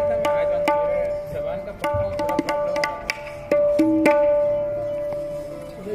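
Tabla struck in separate, unevenly spaced strokes for a sound check. The right-hand drum rings out at one steady pitch after each stroke, mixed with a few deeper, lower strokes.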